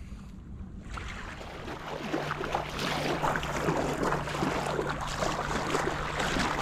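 Shallow water lapping and splashing at the shoreline, starting about a second in and growing louder, with a steady low hum underneath from about two seconds in.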